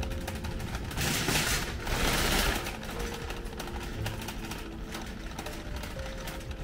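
Background music with held notes over a fast, even ticking beat. About a second in it is broken by two short, loud bursts of hiss-like noise of unknown source.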